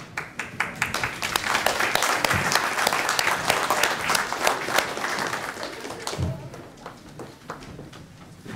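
Audience applauding, many hands clapping together; the applause dies away about six seconds in, leaving a few scattered claps.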